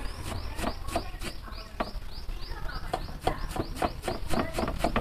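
Knife chopping onions, sharp irregular strikes a few times a second, with a high chirp repeating about three times a second behind it.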